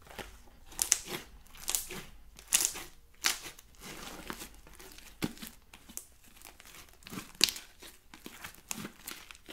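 Fluffy slime speckled with small beads being squeezed and stretched by hand, giving irregular sticky crackles and pops as trapped air bursts. A few pops, about a second in, near 2.5 s and past 7 s, are louder than the rest.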